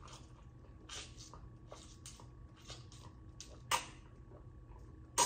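Soft gulps of someone drinking steadily from a plastic cup close to the microphone, about one to two swallows a second, with one louder gulp about two-thirds of the way through.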